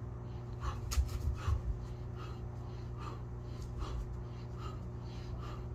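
A man breathing hard during push-ups, a short breath out with each rep, roughly one a second, over a steady low hum. A few soft knocks come about a second in.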